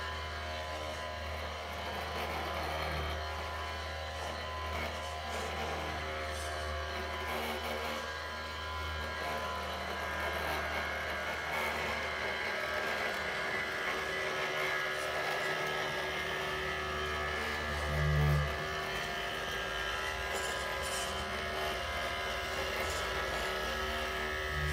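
Small electric motors of a radio-controlled model road roller running steadily with a whine. A low buzz, fitting its vibration motor, stops about halfway through and comes back briefly and louder near the end.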